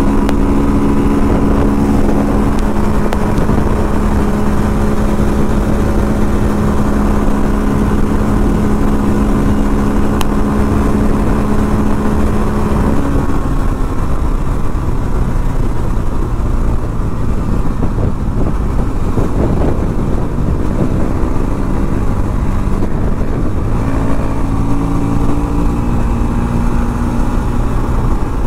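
Motorcycle engine running hard at steady highway speed under heavy wind rush. About halfway through the engine note drops to a lower pitch as the throttle eases, and near the end it climbs again.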